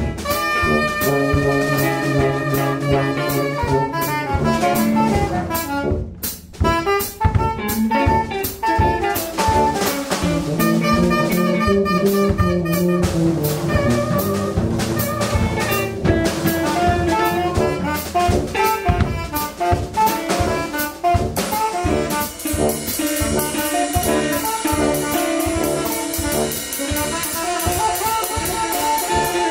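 Small band playing instrumental jazz live: tenor saxophone, electric guitar, tuba and drums. The drums keep a steady beat, with a brief drop about six seconds in, and the cymbals get busier in the last third.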